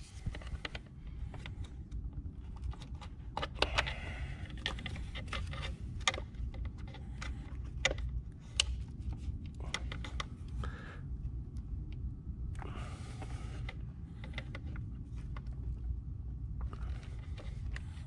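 Scattered small clicks, taps and scrapes of pliers and metal spring clamps as a rubber PCV hose is worked loose in an engine bay, over a steady low background rumble.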